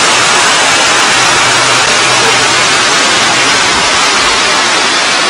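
Waterfall pouring down a rock face, heard close up as a loud, steady rushing hiss.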